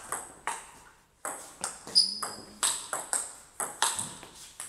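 Table tennis rally: the celluloid-type ball clicking off rubber-faced rackets and bouncing on the table every fraction of a second, with a short pause about a second in before the hits resume. A brief high squeak sounds about two seconds in.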